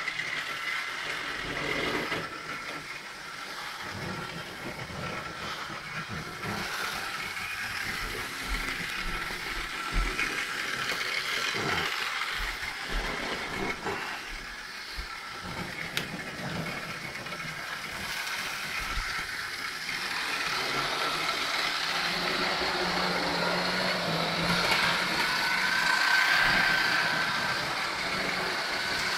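Model railway train running on the layout track: a steady hum and rattle of the small electric locomotive and its wheels on the rails, growing somewhat louder in the second half.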